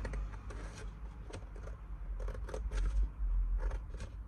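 Scissors snipping through thin cereal-box cardboard, a series of irregular short snips over a low steady hum.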